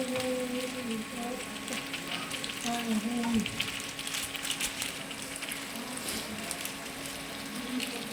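Mixed vegetable curry frying in hot oil in a pan: a steady sizzle with fine crackling pops throughout.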